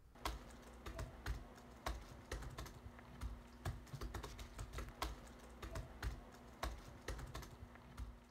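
Typing on a laptop keyboard: an uneven run of key clicks, several a second, over a faint steady hum.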